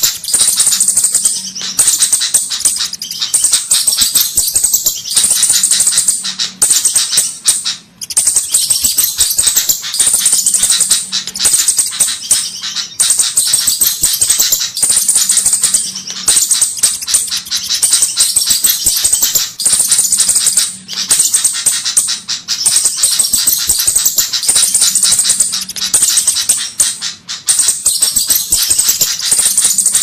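Looped flowerpecker bird-lure (pikat) recording: rapid, high-pitched ticking chip calls in dense bursts that repeat about every two seconds, used to call in flowerpeckers.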